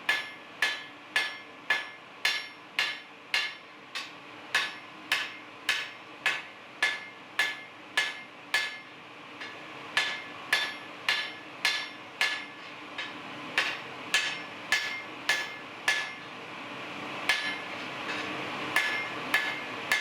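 Hand hammer forging hot jackhammer-bit steel on an anvil: steady blows about two a second, each with a short metallic ring. The hammering stops briefly twice.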